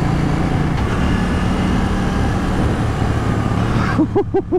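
KTM 790 Duke's parallel-twin engine running at a steady cruise, with wind rushing over the onboard microphone. Near the end come three or four short pitched hoots that rise and fall.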